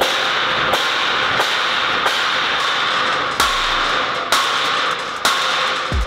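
Steady harsh crackling hiss typical of arc welding on steel, with sharp knocks roughly every three-quarters of a second.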